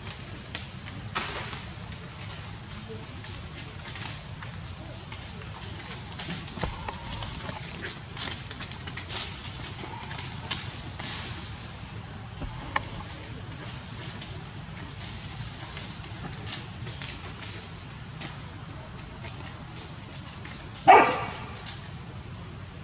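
A steady high-pitched drone of insects. Near the end a dog gives one short, loud bark.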